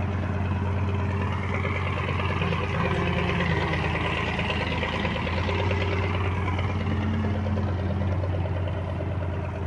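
Small passenger motorboat's engine running steadily under way, a constant low hum, with a rushing hiss of water and wind that swells through the middle.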